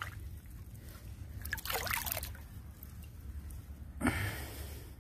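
Shallow river water splashing and trickling as a channel catfish is let go by hand and swims off, with a splash about one and a half seconds in and a sharper one about four seconds in.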